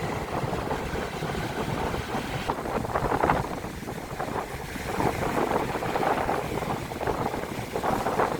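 Storm wind and rough sea surf, with gusts buffeting the microphone in an uneven rumbling rush.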